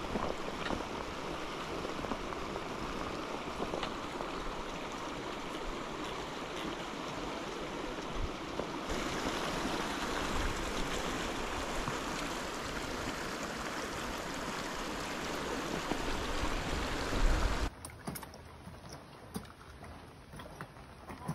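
Mountain creek water rushing steadily through gaps in snow and ice, a continuous even noise. Near the end it cuts off suddenly to a much quieter stretch with a few faint taps.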